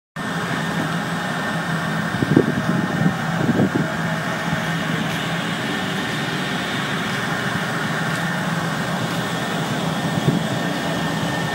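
Biomass gasification plant machinery running steadily: a continuous mechanical hum with a low drone and a faint high whine. A few short low thumps come through, mostly two to four seconds in.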